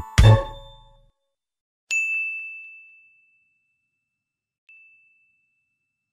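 The last notes of background music die away, then a bright bell-like ding rings out about two seconds in and fades over about a second. A fainter, shorter ding at the same pitch follows near the end: an edited-in sound effect of the kind used with a subscribe and notification-bell overlay.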